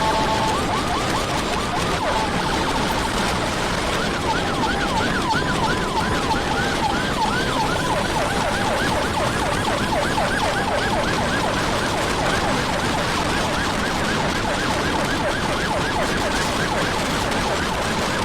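Several electronic emergency sirens of ambulances and their motorcycle escort sound together. The main pattern is a fast rising yelp sweep repeating two to three times a second, and a quick alternating two-tone is heard at the start. Steady road and wind noise from the moving motorcycle runs underneath.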